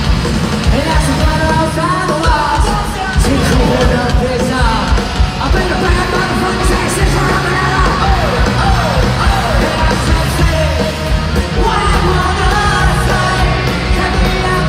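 Punk rock band playing live and loud: drums keeping a fast, steady beat under electric guitars and sung vocals.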